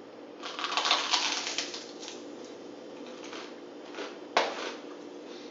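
Crunching of a toasted garlic-bread baguette crust being bitten and chewed: a dense crackle for about a second and a half, then a few softer crackles. A single sharp knock about four seconds in.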